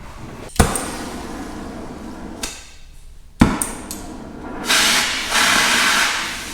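Two sharp hammer blows on steel, nearly three seconds apart, each ringing briefly, struck while trying to drive out a stuck bearing. Near the end comes a louder hissing rush.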